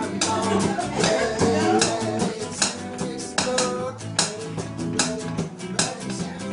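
Acoustic guitars strummed together in a band playing live, pitched chords ringing under sharp, frequent strum strokes.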